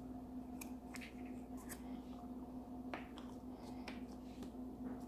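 Faint handling sounds of Play-Doh being pressed and smoothed onto a paper activity mat: a handful of small scattered clicks and taps over a steady low hum.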